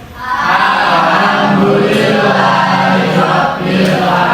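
A roomful of students' voices chanting together in unison, loud and held on a steady pitch.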